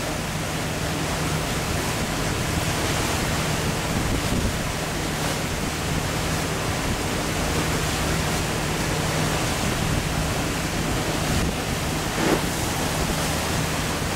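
Wind rushing over the microphone and water rushing along the hull of a sailboat under way in choppy seas, a steady noise with a constant low hum beneath it.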